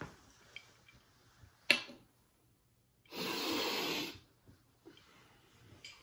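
A person taking one long, hard sniff through the nose while bent over a table, as when snorting a line, lasting about a second a little past the middle. About a second and a half in there is a single sharp tap.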